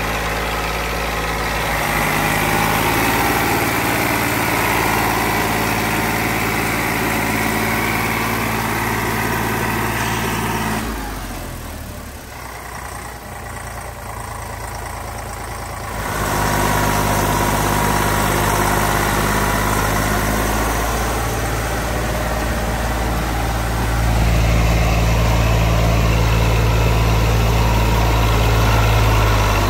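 Tractor diesel engine (Eicher) running steadily under load while hauling a loaded trolley through deep mud. It drops quieter for a few seconds near the middle, then comes back louder in the last few seconds.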